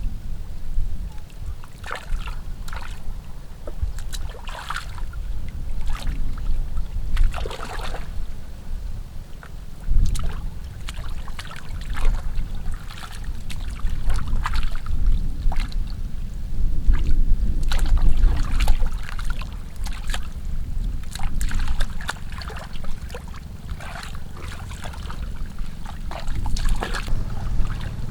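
Shallow muddy water sloshing and splashing in short, irregular bursts over a steady low rumble.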